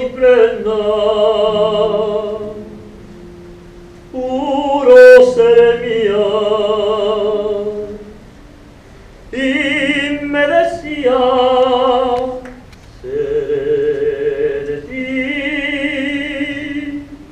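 A woman singing slow phrases of long held notes with wide vibrato, with short pauses between the phrases.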